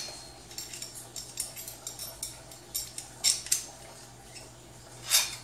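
A run of light clicks and clinks from small hard objects being handled, with sharper knocks twice near the middle and one near the end.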